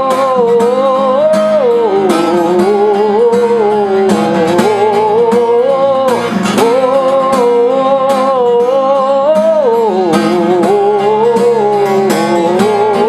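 Acoustic guitar strummed in a steady rhythmic pattern, with a man's voice singing a wordless, drawn-out "e-e-e" melody over it. The long held notes waver and slide up and down.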